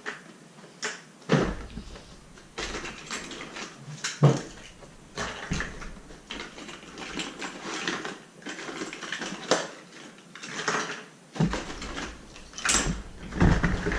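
Plastic Easter eggs clattering and cardboard storage boxes knocking on a tabletop as they are handled: irregular clicks and knocks with rustling between, and heavier thumps about a second in and about four seconds in.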